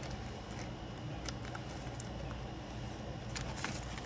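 Paper bills and envelopes being handled: a few light rustles and clicks over a steady low background hum.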